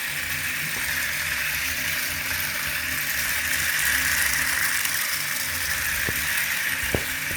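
Battery-powered toy rail car running with a steady whir, two faint ticks near the end.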